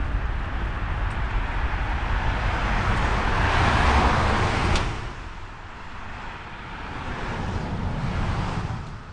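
A car passing on a snowy street, its tyre and engine noise swelling to a peak about four to five seconds in and then dropping away sharply. A second, quieter vehicle swell comes near the end.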